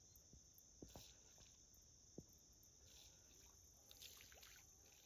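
Near silence with a faint, steady chorus of insects chirring and a few soft clicks.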